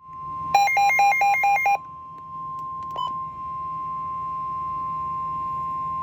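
NOAA Weather Radio 1050 Hz warning alarm tone: one steady, loud, high tone that announces an incoming warning, here a tornado warning. About half a second in, a quick run of about six beeps alternating between two pitches sounds over it for about a second.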